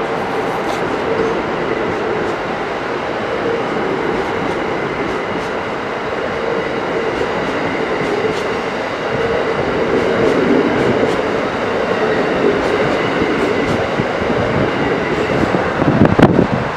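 Amtrak Northeast Regional's stainless-steel Amfleet passenger cars rolling past on the rails: a steady rumble, with scattered clicks of the wheels over rail joints. Near the end there is a louder gust of wind buffeting the microphone.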